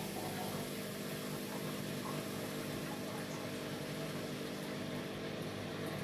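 Amica WA 14680 W front-loading washing machine running, its motor humming steadily as the drum turns and tumbles the laundry.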